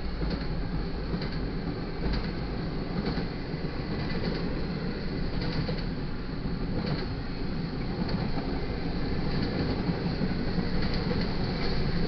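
Intermodal freight train cars rolling past a grade crossing: a steady rumble of steel wheels on rail, with a click every second or so.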